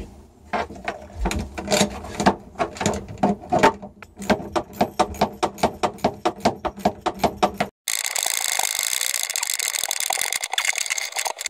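Ratchet wrench clicking in quick repeated strokes as a bolt on the solar arch mount is tightened overhead, speeding up after a few seconds. Near the end the clicking gives way suddenly to a steady buzzing hiss.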